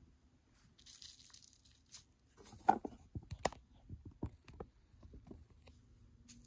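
Stiff paper posters being handled and laid on a sheet of bubble wrap: a short rustle about a second in, then a run of small crinkles and taps, the loudest near three seconds in.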